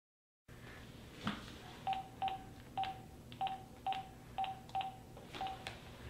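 A phone number being keyed in on a cell phone keypad: a click, then about eight short beeps at one pitch, each with a key click, roughly half a second apart.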